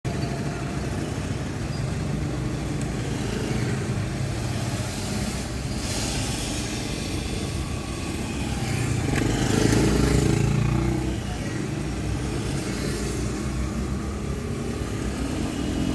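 Road traffic: motor vehicles running past with a steady engine rumble, and one vehicle passing louder about ten seconds in.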